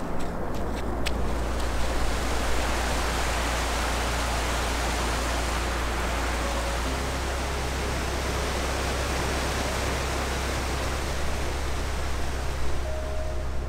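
Fast-flowing mountain stream rushing over rocks, a steady even sound of water.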